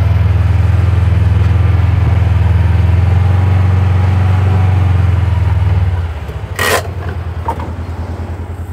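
Kawasaki Mule side-by-side's engine running steadily while it tows a disc harrow through loose dirt. About six seconds in the engine drops to a lower, quieter idle as the vehicle stops, with a short sharp burst of noise soon after.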